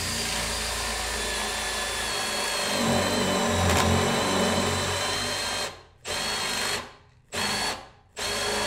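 Makita cordless drill driving a 35 mm forstner bit into wood to bore a concealed-hinge cup hole. It runs steadily for about five and a half seconds, louder and deeper in the middle as the bit bites, then in short trigger bursts with brief pauses.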